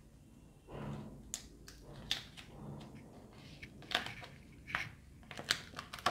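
A sealed paper envelope being opened by hand, its taped flap peeled back: paper crackling with a run of sharp clicks and snaps that come more often toward the end.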